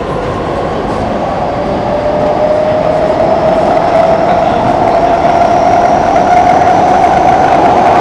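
Singapore MRT train heard from inside the carriage: the electric traction motor whine rises slowly in pitch and grows louder as the train gathers speed, over a steady wheel-on-rail rumble.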